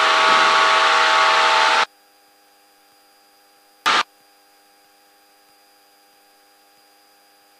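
Steady rushing noise of the Cessna 172's engine and propeller heard through the open headset intercom, which cuts off suddenly about two seconds in when the squelch closes. It opens again for a brief burst about four seconds in; otherwise only a faint avionics hum is left.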